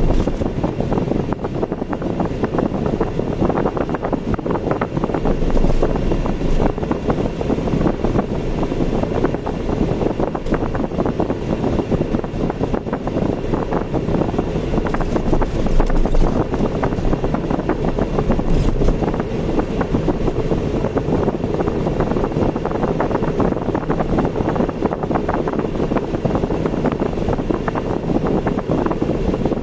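Steady road and engine noise of a car being driven, mixed with wind rushing past.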